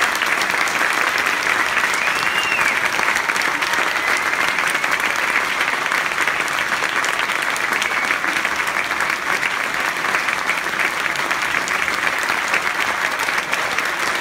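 Large audience applauding, a dense, steady clapping that holds at the same level throughout.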